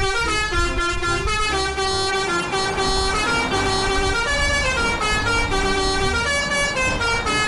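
A tune played in a brassy, horn-like tone, note after note, over a steady low beat.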